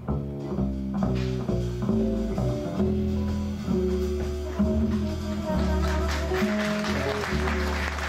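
Live jazz: upright double bass played pizzicato with hollow-body electric guitar and drum kit backing it. The cymbals grow louder in the second half.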